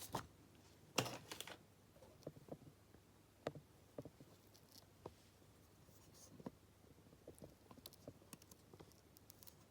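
Small metal padlocks being picked up and handled on a hard surface: scattered light clicks and knocks, with one louder knock about a second in.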